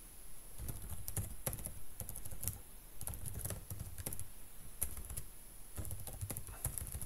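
Typing on a computer keyboard: a run of short, irregularly spaced keystrokes.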